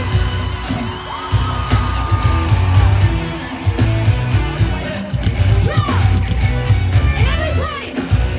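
Live pop concert heard from inside a festival crowd: loud music from the stage PA with heavy pulsing bass and a singer's voice, and fans yelling and singing along.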